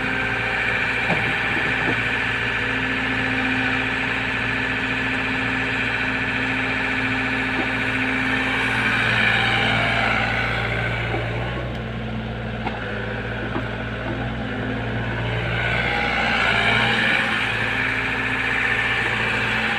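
Compact crawler excavator's diesel engine running steadily under working load as the machine digs and swings with bucketfuls of wet clay, a high whine over the engine note. The whine fades for a few seconds about halfway through and comes back, with a few faint knocks.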